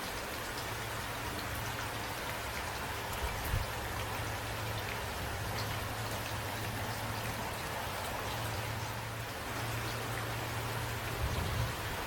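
Steady rain falling on a surface, with a steady low hum beneath it and a brief low thump about three and a half seconds in and another near the end.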